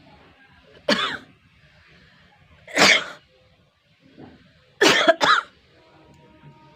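A person forcefully expelling breath through the nose and mouth three times: once about a second in, again near three seconds, and a quick double burst around five seconds.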